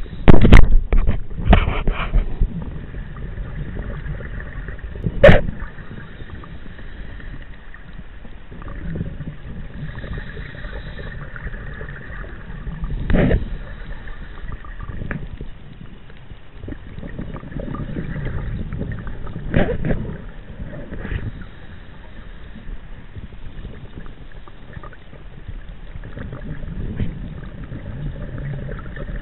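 Underwater sound heard through a chest-mounted camera housing: a steady muffled rumble, broken every several seconds by a gush of exhaled bubbles from a scuba diver's regulator.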